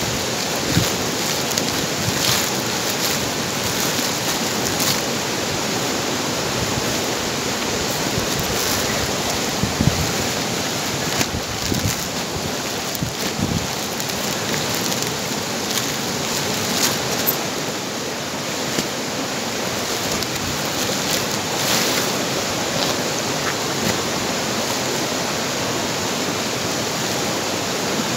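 Steady rush of a stream running over rocks, with scattered crinkles and rustles of woven plastic sacks being handled and stacked.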